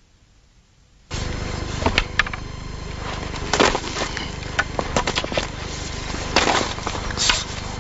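Near silence for about a second, then a steady background noise starts suddenly, with scattered sharp clicks and knocks throughout.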